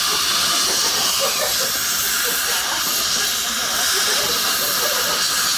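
Dental suction hissing steadily and loudly.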